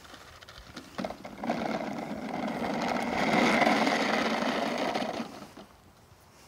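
Plastic toy garbage truck rolling across a rough asphalt path, its hard plastic wheels giving a grainy rattling noise. It starts with a knock as the truck is set down, builds, then fades as the truck slows.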